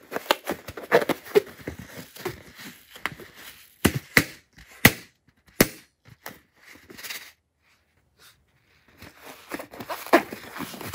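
Hands squeezing and stretching a filled latex balloon: rubbery crackling with a run of sharp snaps and clicks, a short pause, then dense crackling again near the end.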